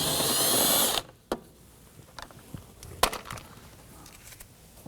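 Cordless power driver with a 10 mm socket whirring for about a second as it backs out a door-handle screw, then cutting off. A few light clicks and knocks of the screw and tool being handled follow.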